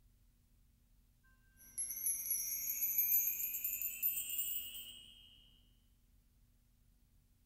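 A shimmering, chime-like sound effect that sweeps upward in pitch, starting about two seconds in and fading away a few seconds later: the audio sting for a film production company's logo.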